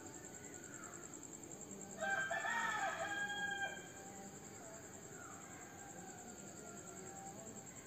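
A rooster crows once, about two seconds in, a single call of under two seconds. Crickets chirp steadily behind it.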